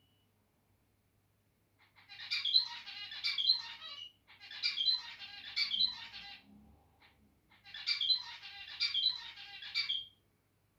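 Male zebra finch singing: three short song phrases of buzzy, nasal notes, each about two seconds long, with brief pauses between them.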